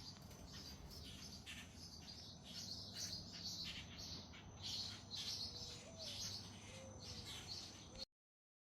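Small birds chirping and twittering in quick, short notes over a faint low background hum; the sound stops abruptly near the end.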